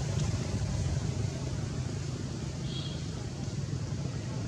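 Steady low rumble of road traffic in the background, with a brief faint high chirp about midway.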